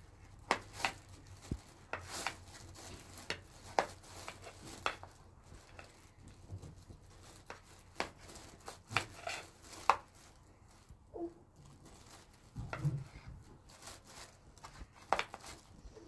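A series of irregular sharp knocks and clicks, unevenly spaced, with a couple of duller low thumps near the end.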